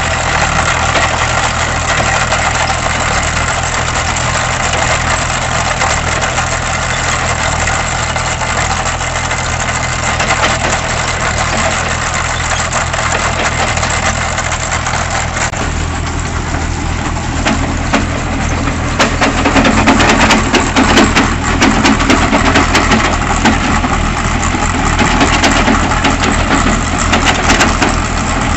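Tractor engine running steadily under load while a tractor-mounted chain trencher cuts through stony soil, its digging chain grinding and clattering. About two thirds of the way through it gets louder, with many sharp clicks and rattles.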